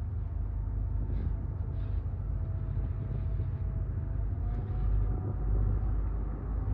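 A ferry's engines running with a deep, steady rumble and a faint steady whine above it, growing a little louder about five seconds in.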